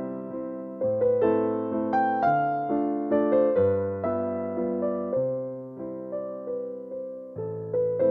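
Background music: a slow piano melody, notes struck one or two at a time and left to fade.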